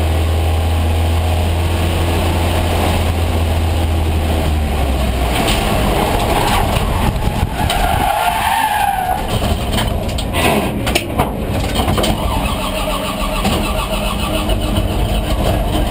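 A 1974 AMC Javelin AMX race car's engine running hard at racing speed, heard from inside the stripped cabin. The note is steady for the first few seconds, then rougher through the middle, with knocks and rattles and a brief rising-and-falling tone while cornering, before it steadies again.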